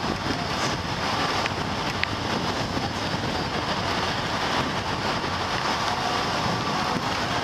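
Motorbike riding along a road, heard from the bike: a steady rush of wind on the microphone over the running engine.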